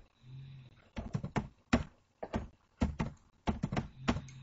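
Computer keyboard typing: about a dozen unevenly spaced keystroke clicks as a short word list is typed.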